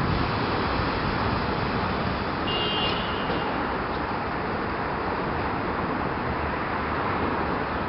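Steady road traffic noise, with a short high-pitched beep about two and a half seconds in.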